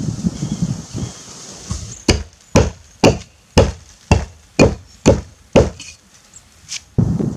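Helko Werk Tasmanian axe chopping into a standing tree trunk: after a low rustle, about ten sharp blows come at roughly two a second from about two seconds in, the last two lighter.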